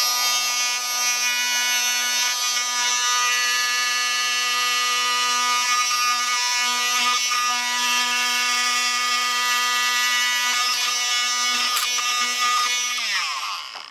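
Bosch corded oscillating multi-tool with a scraper blade running at a steady high buzz as it scrapes cured epoxy bonding compound off a carbon fiber panel. Near the end it winds down, falling in pitch, and stops.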